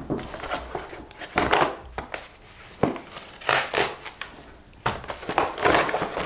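Small cardboard box being handled and opened by hand: irregular rustling and scraping of cardboard with crinkling packaging, broken by a few sharp taps.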